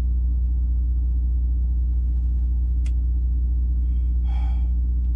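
Steady low vehicle rumble heard from inside, with a sharp click a little before three seconds and a short higher-pitched sound past four seconds.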